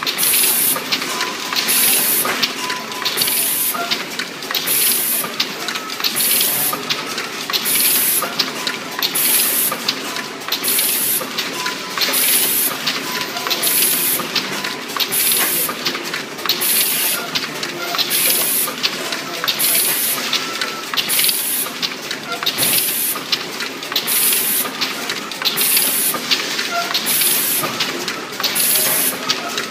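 ZHW-600L automatic vial cartoning machine running, a steady mechanical clatter with a short hiss repeating about once a second in step with its cycle.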